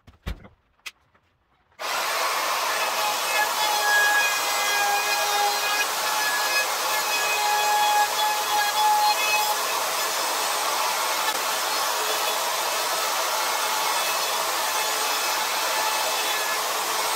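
Compact router switched on about two seconds in, then running steadily with a high motor whine while it routes the fin-box recess in a foam surfboard blank through a jig. Two sharp clicks come just before it starts.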